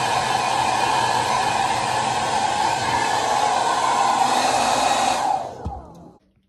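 Hand-held hair dryer blowing steadily while drying a dog's wet coat, then switched off a little after five seconds in, its motor winding down with a falling pitch to silence.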